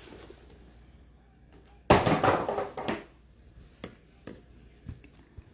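Trading cards and pack wrapper being handled: a short rustle about two seconds in, then a few light clicks.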